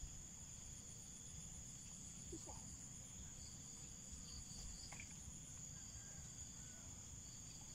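Insects chirring in a faint, steady high trill, with a faster pulsing trill above it that fades out about halfway through, over a low background rumble.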